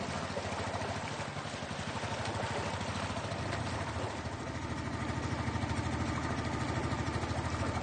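Longtail boat engine running steadily with a fast, even throb.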